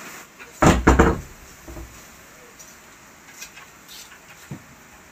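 Three heavy knocks in quick succession, a little over half a second in, then a few faint taps and clicks.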